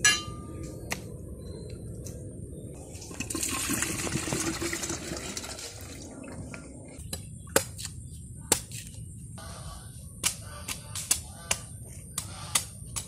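Coconut water pouring from a freshly opened green coconut into a plastic jug for about two and a half seconds. Before and after it, a large chopping knife strikes green coconut husk in single sharp chops, about one a second near the end.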